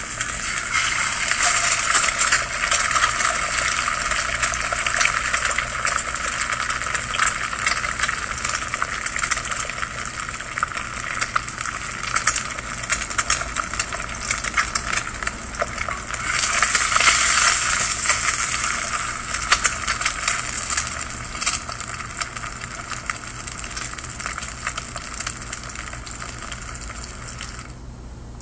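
Eggs frying in hot fat in a pan, a dense sizzle with sharp crackles and pops. It swells louder a little past halfway, then settles down and stops just before the end.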